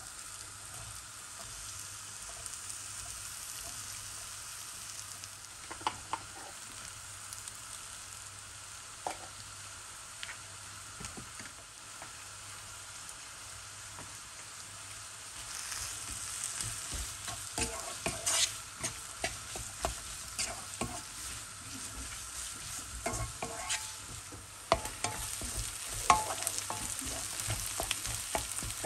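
Food frying in a pan with a steady sizzle, while a spatula stirs and scrapes, knocking against the pan in scattered sharp clicks. The sizzle and the stirring get louder about halfway through.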